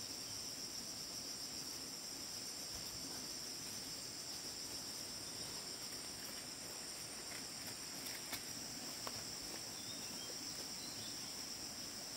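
Steady high-pitched chorus of insects, an unbroken shrill chirring, with a few faint clicks near the end.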